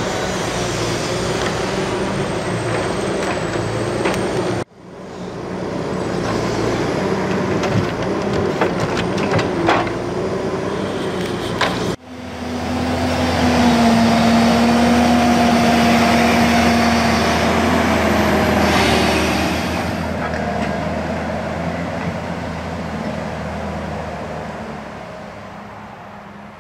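Forestry forwarder's diesel engine running, with scattered knocks from log handling in the middle stretch. After an abrupt cut about twelve seconds in, the engine runs with a steady note as the machine drives through mud, then fades out near the end.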